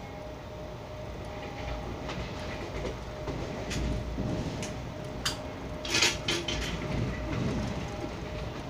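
Jan Shatabdi Express passenger coach running along the track, heard from inside: a steady rumble of wheels on rail, with a run of sharp clacks from the wheels, loudest about six seconds in.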